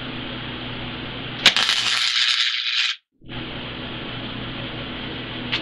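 A flux-core wire-feed welder's arc laying a single tack weld: the arc strikes with a sharp crack about a second and a half in, crackles and hisses for about a second and a half, then cuts off abruptly. A steady hum runs underneath, and a small click comes near the end.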